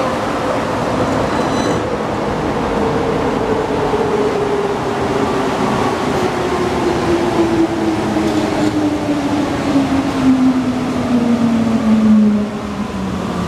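Alstom NS-93 rubber-tyred metro train heard from inside the car, slowing down: steady running rumble with the traction drive's whine falling steadily in pitch as the train brakes into a station.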